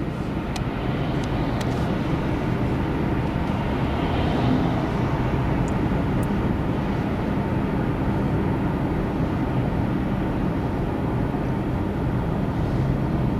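Cabin noise inside a moving Honda with a 2.0 petrol engine in third gear at about 2000 rpm: steady engine hum mixed with road and tyre noise.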